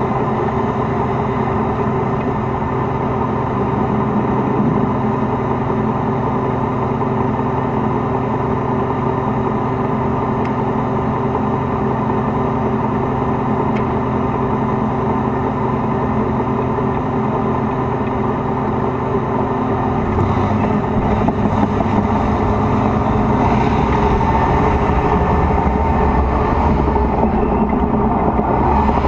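T-72 tank's V12 diesel engine running steadily, heard from on the tank. About twenty seconds in it grows louder and deeper as the tank moves off.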